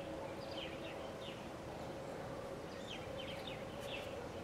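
Small birds chirping in short, quick falling notes, a few at a time, over a faint steady hum.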